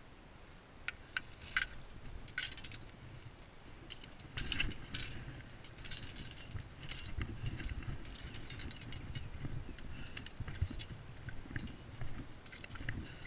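Irregular clinks and rattles of a landing net's metal frame and strap fittings being handled, over a deep rumble.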